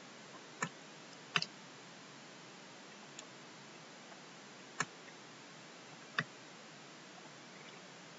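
Computer mouse clicking, a handful of short, sharp, irregularly spaced clicks, one of them a quick double click, over faint steady room hiss.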